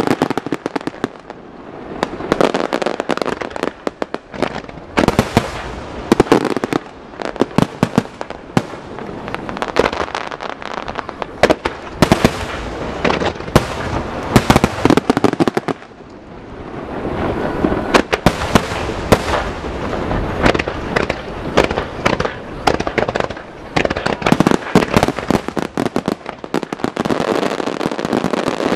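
Aerial firework shells bursting in a dense barrage: sharp bangs one after another over continuous crackling, easing off briefly twice and then building again.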